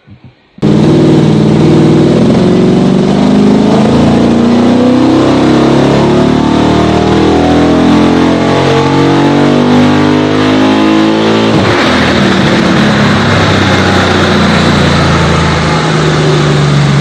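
Chrysler 300C's 6.4-litre Hemi V8, fitted with a Comp Cams Stage 2 camshaft, making a loud full-throttle pull on a hub dyno, the revs climbing for about eleven seconds before the throttle is let off and the engine winds down.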